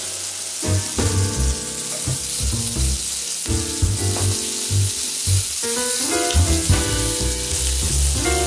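Food sizzling as it fries in a pan, a steady hiss, under background music with a plucked melody and a regular bass beat.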